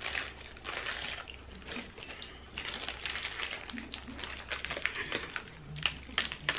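Plastic and foil snack wrappers crinkling, with crunching of crisp packaged sweet toast as it is handled and bitten; irregular rustles and crackles throughout.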